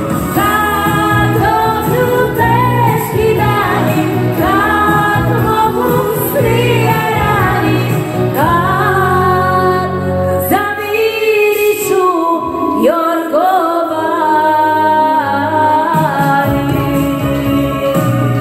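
A woman sings into a microphone over loud backing music. The bass drops out for about two seconds a little past the middle.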